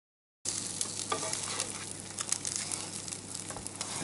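Scrambled eggs sizzling in an electric frying pan while a plastic spatula stirs and scrapes them across the pan, with small clicks and scrapes over a steady hiss. The sound cuts in abruptly about half a second in.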